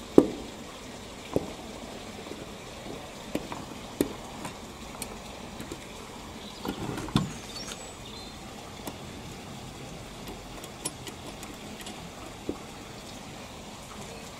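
Scattered knocks and clicks from a metal Mamod toy traction engine being handled while its front axle is bent back into place. The sharpest knock comes about a quarter-second in, a short cluster of knocks comes around seven seconds, and faint ticks fall in between, over a steady low hiss.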